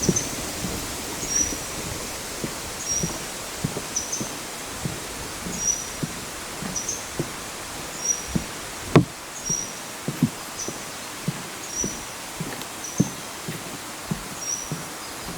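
A small bird repeating one short, high, thin call about every three quarters of a second, over the soft thumps of footsteps on a lakeside path. A single sharp click about nine seconds in.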